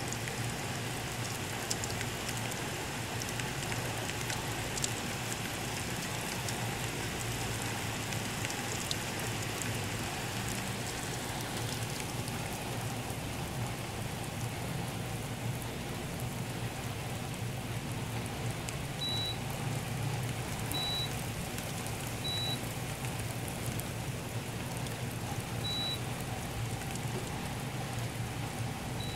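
Heavy rain pouring down steadily in a downpour. A few short high beeps sound in the second half.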